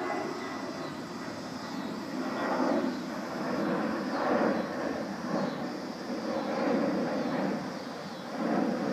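Radio-controlled model airplane's electric motor and propeller buzzing in flight, swelling and fading repeatedly as the plane passes and turns.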